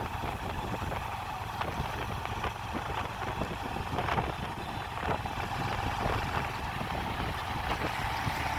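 Steady low rumble of an engine running, with a few faint ticks over it.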